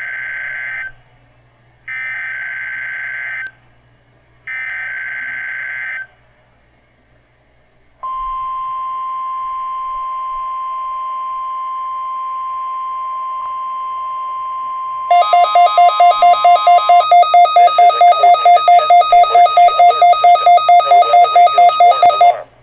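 EAS activation on NOAA Weather Radio. The SAME digital header sounds three times, each a short warbling modem-like screech, followed by the steady single-pitched 1050 Hz weather radio alarm tone lasting about nine seconds. Near the end of that tone, the WR120EZ receiver's own alert starts: a loud, harsh beep pulsing about four times a second for about seven seconds, which cuts off suddenly.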